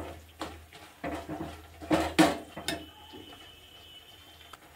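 Steel spoon scraping and knocking against a kadhai while stirring grated dry coconut into sugar syrup: a few irregular scrapes and clinks, the loudest about two seconds in, then quieter stirring.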